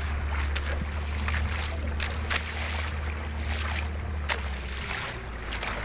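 A small fishing boat's engine running slowly, a steady low hum that drops away near the end, with a few sharp knocks.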